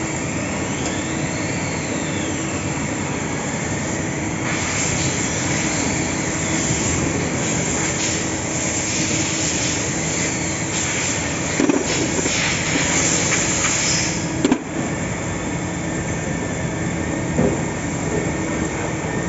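CNC machine running with a steady mechanical hum, a high whine that rises and falls early on, and a few sharp clicks, the loudest about three quarters of the way through.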